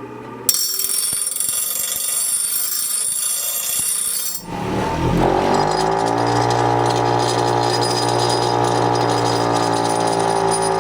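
Hart 6-inch bench grinder switched on. Its motor spins up with a rising whine that settles into a steady hum a second or so later. Before that, from about half a second in, there is a loud hiss that stops abruptly.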